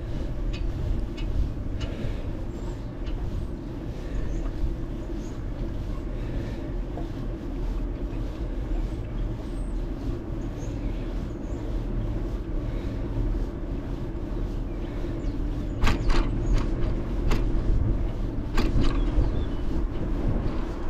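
Steady low rumble of wind on the microphone and tyres rolling on asphalt while riding a bicycle, with a few sharp knocks near the end as the bike goes over bumps in the pavement.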